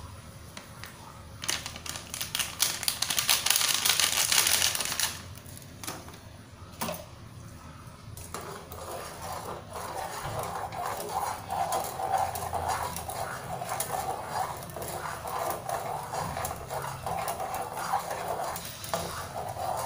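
A packet of agar-agar powder rustling as it is shaken out over a saucepan of tea for about three seconds. From about eight seconds in, a wire whisk stirs the liquid briskly, with rapid clicking and sloshing against the pan.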